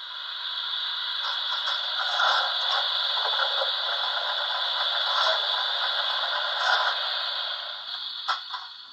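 Märklin H0 model train rolling past on the track: a steady rushing, scraping noise that builds up and then fades away, with a couple of sharp clicks near the end.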